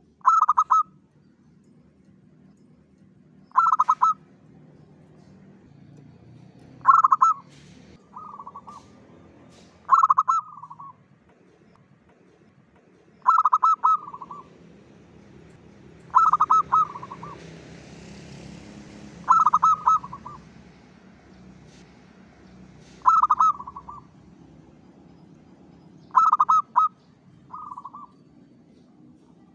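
Local zebra dove (perkutut) cooing: a short, rippling coo phrase repeated nine times, about every three seconds, some followed by a softer closing note. It is a lure song used to draw in other zebra doves.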